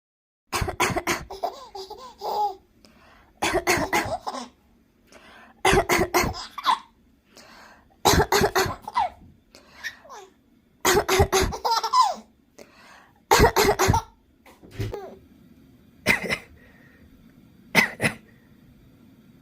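A woman coughing in short bursts, six times over, each burst answered by a baby's laughter. Near the end come two lone single coughs.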